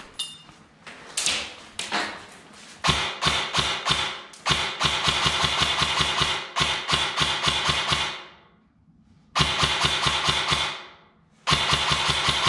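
Airsoft electric gun firing full-auto in several bursts: a rapid, even mechanical rattle of shots, with a long burst of about three and a half seconds in the middle and two shorter bursts near the end.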